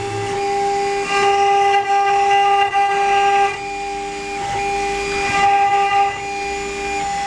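CNC router spindle running at a steady high speed, a loud high-pitched whine that grows louder and harsher in a few stretches.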